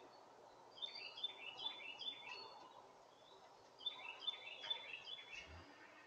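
A songbird singing two phrases of repeated falling notes, about two or three notes a second, the first starting about a second in and the second a little before the four-second mark.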